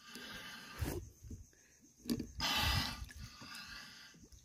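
A free diver at the surface breathing hard through a snorkel: a weaker breath at the start and a louder rushing one about halfway through, with low knocks and splashes between.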